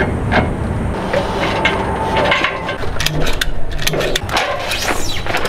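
A cargo ratchet strap being cranked tight, its ratchet giving a run of sharp clicks in the second half, over the steady low running of an engine.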